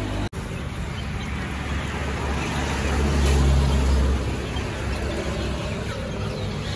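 Low engine rumble of a motor vehicle passing close by, building to its loudest about three to four seconds in and then easing off, over steady outdoor background noise; the sound breaks off for an instant just after the start.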